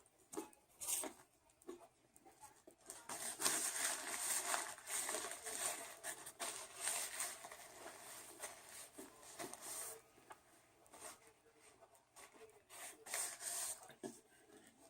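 Crinkling and rustling of paper or foil fast-food packaging being handled, heaviest in the middle for several seconds, with scattered small clicks and rustles before and after.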